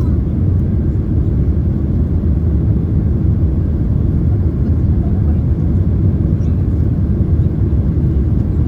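Steady low rumble of engine and airflow noise heard inside the passenger cabin of a Boeing 767-300ER airliner.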